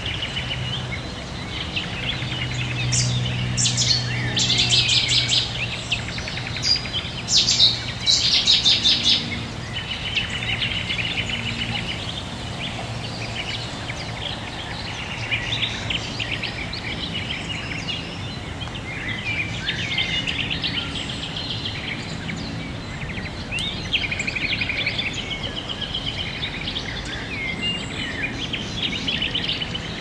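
Many birds singing at once in a spring evening chorus by a river, with loud, rapid repeated notes about three to nine seconds in. A low engine hum from distant traffic runs underneath for the first dozen seconds, and the river rushes steadily behind it all.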